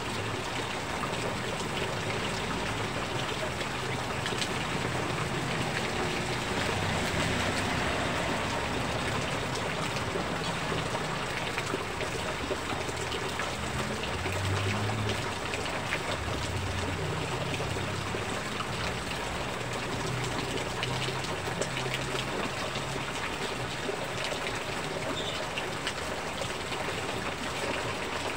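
Steady heavy rain, with runoff pouring in streams from a roof edge and splashing down onto the person standing under it and the wet pavement.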